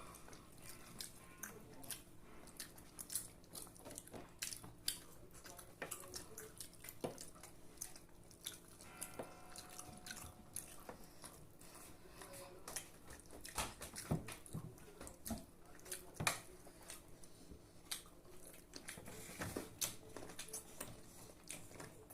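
People chewing and eating, with faint wet mouth smacks and scattered small clicks at an irregular pace, over a low steady hum.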